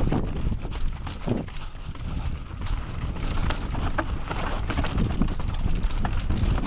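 Mountain bike rattling and clattering down a rough dirt trail: irregular knocks and clicks from the bike over bumps, over a steady low rumble.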